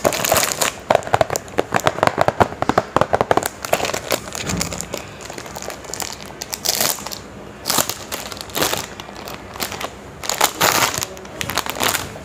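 Clear plastic cellophane wrap crinkling and crackling as it is handled and peeled off a cardboard sticker box. The crinkling is dense for the first few seconds, then comes in scattered short crackles.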